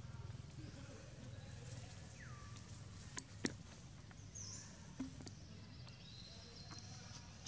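Faint forest ambience with a few short high calls: a falling whistle about two seconds in, a brief chirp a little later and a steady high note near the end. Two sharp clicks about three seconds in are the loudest sounds.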